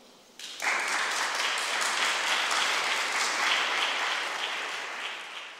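Audience applauding. The clapping starts about half a second in and tapers off near the end.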